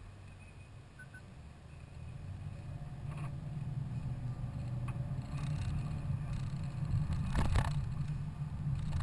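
Low engine and road rumble heard inside a moving car's cabin, growing louder about two seconds in, with a few short knocks, the loudest about seven and a half seconds in.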